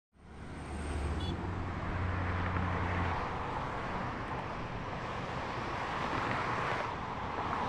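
Road traffic noise, a steady wash of passing cars, fading in at the start with a low engine rumble under it for the first few seconds.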